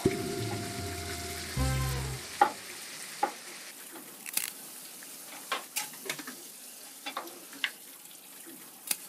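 Food frying in a hot pan: a steady sizzle with scattered sharp pops and clinks. A short musical sound effect plays over the first two seconds.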